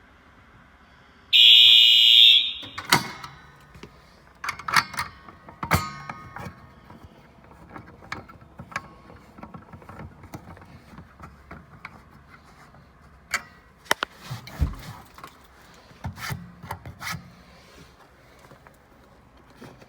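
Electronic fire alarm horn sounds one loud, steady, high-pitched blast lasting about a second, about a second in. It is followed by scattered clicks and knocks.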